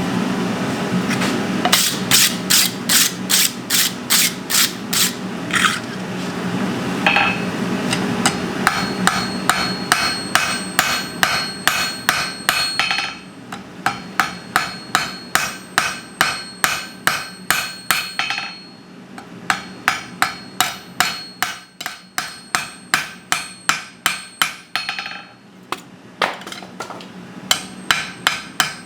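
Runs of ringing hammer blows on hot steel, about two to three strikes a second, as the spine of a kettle hook is drawn out and tapered, with brief pauses between heats. A steady low hum runs underneath.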